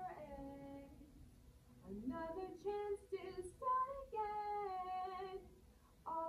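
A woman singing a vocal take with no accompaniment heard. She sings short phrases, scoops up into a note about two seconds in, and holds a long note in the second half that fades out near the end.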